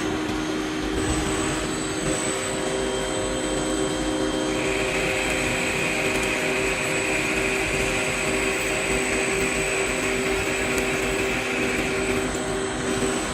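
Industrial machining equipment running steadily, a constant hum made of several steady tones. A higher whine comes in about four seconds in and stops about twelve seconds in, as if a tool is cutting.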